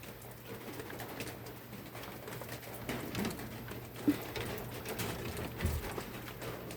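A dove cooing faintly against a low steady hum, with a few light taps and one sharper tap about four seconds in.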